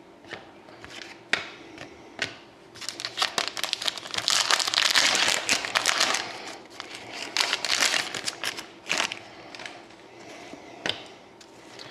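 Crinkling and rustling of a trading-card pack wrapper, with sharp clicks of cards being handled, heaviest in the middle stretch.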